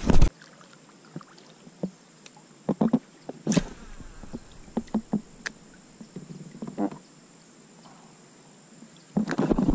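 Scattered clicks and knocks from fishing tackle and a plastic kayak hull during a spinnerbait retrieve. There is a sharp noise at the very start and a louder rush of noise near the end.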